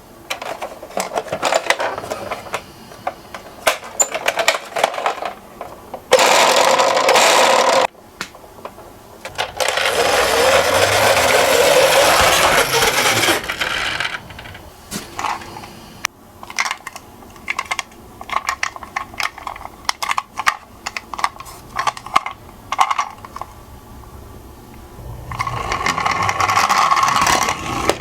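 Toy minicars clicking and clattering as they are handled and set on the track, with three longer stretches of rolling rumble as they run down the slope, the longest about four seconds in the middle.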